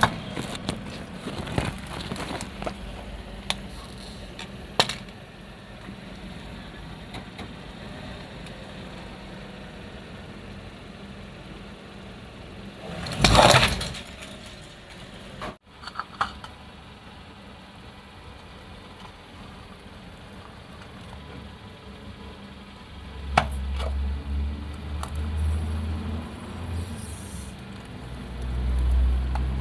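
Car tyre rolling slowly over small plastic toys and artificial flowers on paving, with scattered cracks and snaps of plastic breaking and one loud crunch about halfway through. Near the end the car's engine rumbles low as the tyre presses onto another object.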